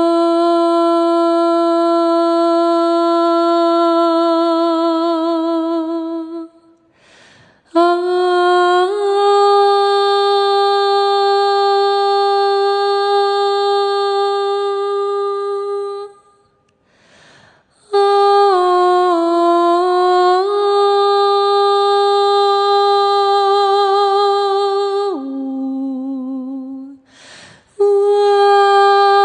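A singer's voice holding long sustained notes with light vibrato, in phrases of several seconds each, sometimes stepping to a new pitch mid-phrase, with audible breaths between phrases.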